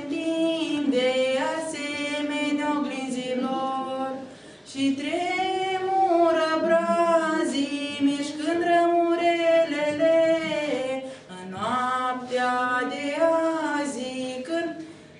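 A young woman singing a Christmas carol solo and unaccompanied, in phrases of long held notes with two short breaks between them, the last phrase dying away near the end.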